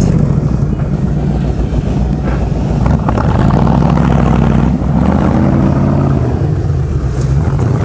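BRDM-2 armoured car's V8 petrol engine running hard under load as the vehicle tries to drive off from where it was stuck, the revs shifting a few times.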